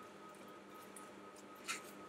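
Faint wet squishing of a hand rubbing spice powder into raw chicken drumsticks on a plate, with one brief louder squelch near the end, over a faint steady hum.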